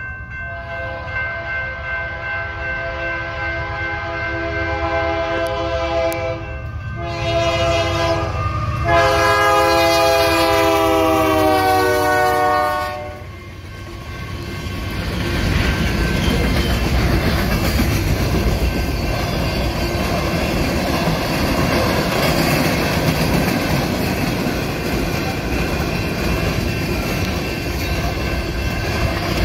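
Union Pacific freight locomotive's multi-note air horn sounding at a grade crossing: a long blast, a short one, then a final long blast whose pitch falls as the locomotive goes by. Then the freight cars roll past with a steady rumble and clatter of wheels on the rails.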